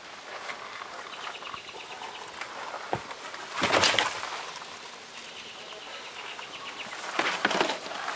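A plastic trash can and its lid being handled, rustling and clattering, loudest about four seconds in, with smaller knocks near the end. Birds chirp faintly in the background.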